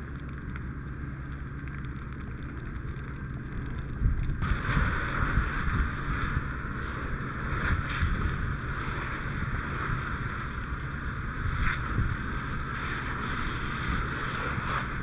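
Firefighting hose nozzle opening about four seconds in, then the water stream hissing steadily as it is sprayed into burning brush and debris, over a constant low rumble.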